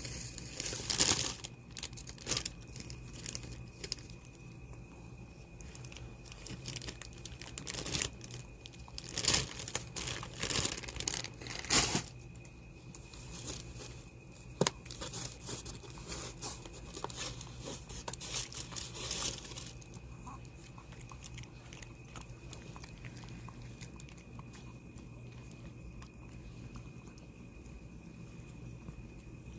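A dog eating, chewing and crunching its food, with the loudest crunches about a second in and between about eight and twelve seconds in; the chewing dies away after about twenty seconds.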